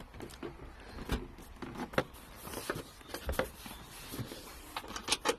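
Irregular knocks, clicks and rubbing as a car seat is carried to the car and pushed into place by hand. The loudest knocks come about two and three seconds in, with a quick cluster near the end.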